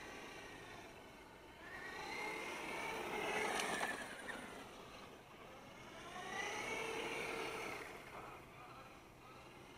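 Brushless 4350kv electric motor and drivetrain of an FTX Carnage 2.0 RC truck whining as it speeds past twice, the pitch rising as it comes near and falling as it moves away. A sharp tick comes near the middle of the first pass.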